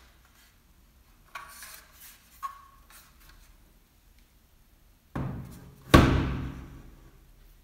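A Sophos XG 115 firewall appliance handled and turned over in the hands, with a few light knocks and rubbing, then set down on a table: two thuds about a second apart near the end, the second the loudest, ringing briefly.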